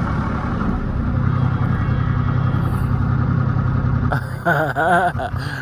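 A vehicle's engine droning steadily. About four seconds in, a wavering, pitched sound breaks in over it for about a second and a half.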